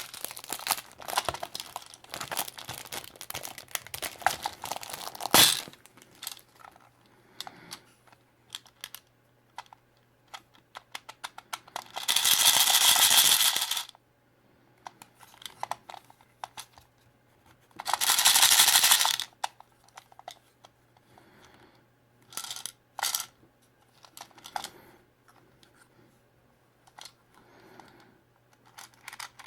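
Hands unwrapping and opening toy surprise eggs. Plastic wrapper crinkles for the first five seconds or so, followed by scattered small plastic clicks and taps, with two loud harsh sounds about a second and a half long near the middle.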